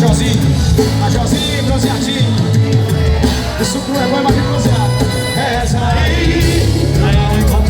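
Live forró band music with a singer's vocal line over a steady beat.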